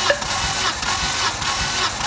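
Hyundai G4GC 2.0-litre four-cylinder engine being cranked over by its starter motor, with a regular beat about three times a second, during a compression test of the third cylinder, which reads 12 kg/cm².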